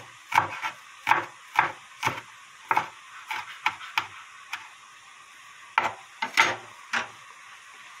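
Kitchen knife chopping onion shoots on a bamboo cutting board: sharp knocks of the blade on the wood about two a second. A pause falls about halfway through, then a few more quick chops follow.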